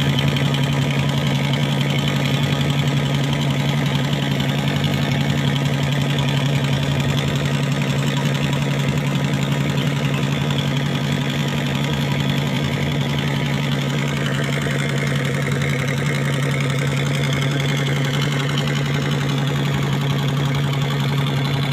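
Fishing boat's engine running steadily at constant speed, a low even hum that holds the same pitch and level throughout.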